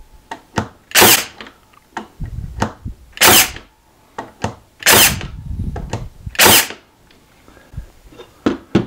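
Makita 18V LXT cordless 23-gauge pin nailer firing four times, each a sharp snap, about one every second and a half to two seconds, with lighter clicks and knocks between shots. The 1-3/8 inch pins are going into red oak edge grain with the depth set all the way forward, and they are not driven all the way in.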